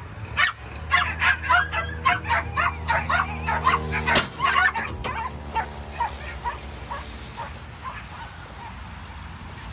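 Racing sighthounds yelping and barking in quick, excited succession in the starting boxes. A single sharp crack comes about four seconds in as the trap gates open, and the yelps then thin out and grow fainter as the dogs run off, over a steady low hum.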